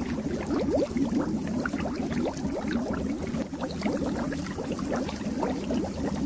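Fish tank water bubbling: a dense, continuous stream of small bubbles, with a steady low hum underneath.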